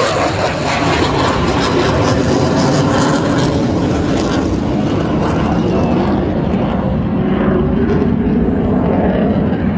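Loud roar of an airshow aircraft flying past. Its high end fades over the second half as it moves away, leaving a lower rumble.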